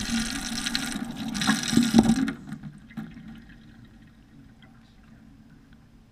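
Tap water rushing and splashing directly over a GoPro camera as it is washed under a kitchen faucet, heard very close up. The water cuts off about two seconds in, leaving a few faint drips.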